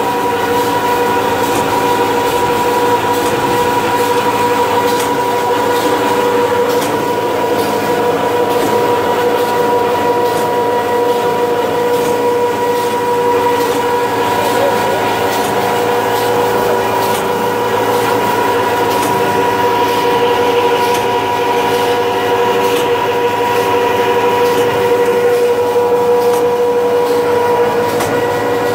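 Charcoal briquette screw extruder running steadily under load, its electric motor and gearbox giving a constant whine of two held tones over mechanical rumble.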